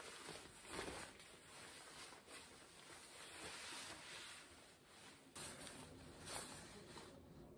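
Synthetic shell of a rain jacket rustling faintly as it is handled and held up, with a few brief louder swishes of the fabric.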